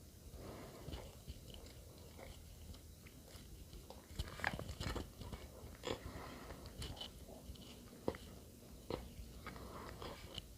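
Close-up chewing and biting of bread, with irregular soft crunches and wet mouth clicks that grow louder and more frequent about halfway through.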